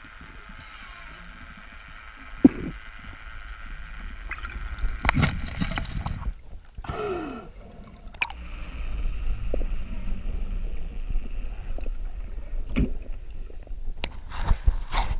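Muffled underwater water noise and low rumble through an action camera's housing, with a few sharp knocks and some bubbling. Near the end, water splashing as the camera comes up at the surface.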